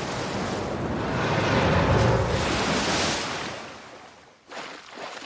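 A large wave of water surging up and crashing back down, a rushing noise that swells to its loudest about two seconds in and dies away about four seconds in. A brief short swish follows near the end.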